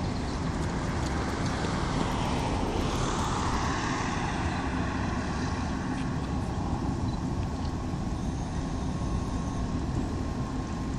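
ČKD Tatra T4D tram pair running slowly along street track: a steady rumble with a faint steady hum. A rush of noise swells and fades about two to four seconds in.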